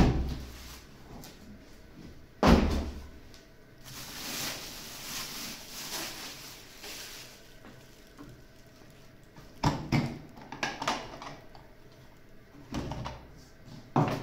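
Plastic wrapping rustling as it is pulled off an ash vacuum, between sharp knocks and clunks of the vacuum's motor head and metal tank being handled and set on a table. There are knocks at the start and about two seconds later, rustling in the middle, and bunches of clunks about ten seconds in and near the end.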